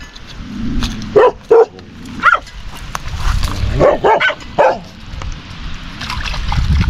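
A dog barking, a run of short barks in small groups through the first five seconds.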